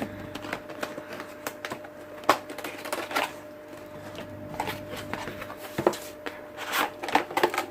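Coffee machine box being opened by hand: cardboard and packaging handled, with scattered scrapes and taps and a sharp knock about two seconds in.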